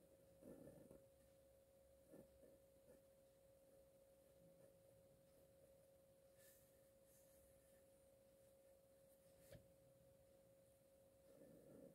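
Near silence with a faint steady tone. A few soft strokes of a felt-tip marker on paper come in the first few seconds, and a single click comes near the end.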